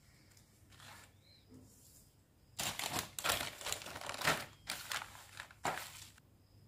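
Bubble wrap and a plastic courier bag being handled, crinkling and rustling in a run of irregular crackles that starts about two and a half seconds in and lasts about three and a half seconds.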